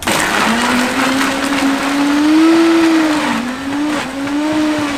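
Countertop blender starting up and blending mango and ice. The motor pitch climbs over the first couple of seconds, then dips and recovers twice as the load in the jar shifts.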